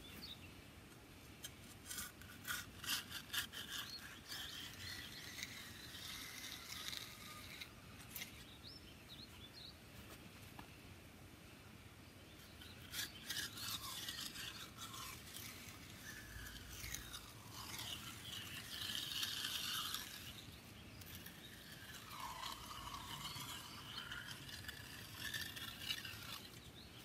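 Steel concrete edging tool scraping and rubbing along the edge of still-wet concrete in faint, irregular strokes as the top corner of the wall is rough-rounded.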